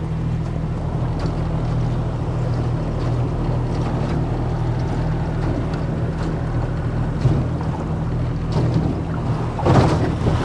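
A small boat's motor running steadily under way, a constant low hum with water and wind noise over it.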